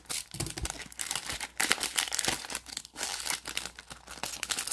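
Plastic wrapper of a trading-card cello pack crinkling as it is handled and torn open: a dense run of short, irregular crackles.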